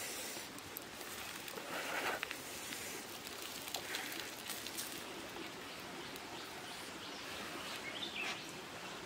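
Fingers tearing and picking apart a charred grilled fish, a few short soft rustling tears over a steady outdoor background hiss.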